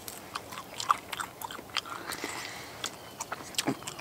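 A person chewing and biting into a breaded, fried squirrel leg, with irregular crunchy clicks and mouth sounds.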